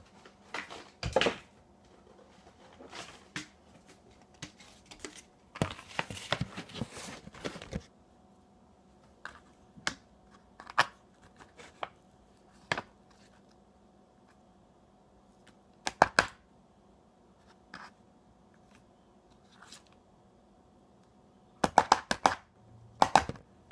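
Metal fork scraping and tapping against an aluminium foil pan while eating: scattered short clicks and scrapes, a longer crinkly scrape lasting about two seconds around a quarter of the way in, and a quick run of clicks near the end.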